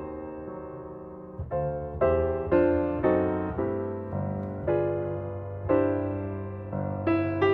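Background piano music: slow, gentle chords, each struck and left to ring out, a new one about every second.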